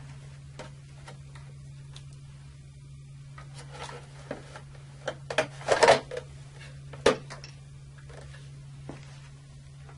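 Front cover of an Eaton Series NRX air circuit breaker being fitted onto the breaker: scattered knocks and clicks as it is handled and pressed into place, the loudest cluster about six seconds in and another sharp knock a second later.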